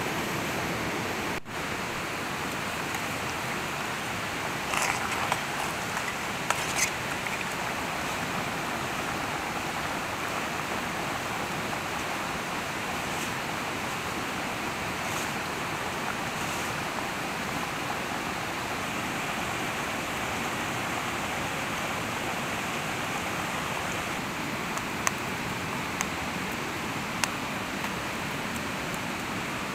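Steady rushing of river water, with a few short clicks here and there.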